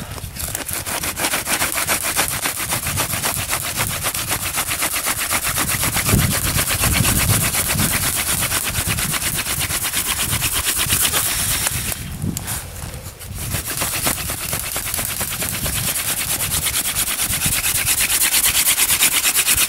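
Hand-drill friction fire: a long wooden spindle spun between the palms, grinding into a wooden board with a fast, dry chattering rub, with a short break about twelve seconds in. The spindle is burning in its first hole and the board is already smoking.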